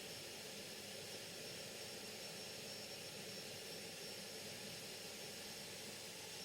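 Faint steady hiss with no distinct sounds: room tone or the recording's noise floor.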